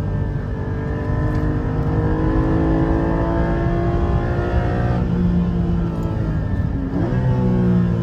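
Car engine pulling hard on track, its pitch climbing slowly for about five seconds and then falling suddenly. Just before seven seconds in there is a short, quick rise in revs, and then steady running.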